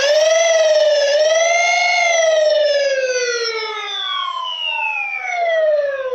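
Banshee flywheel motors in a modified Nerf Swordfish revving on the rev trigger: a loud, high whine that holds for about two seconds, then slowly falls in pitch as the flywheels wind down.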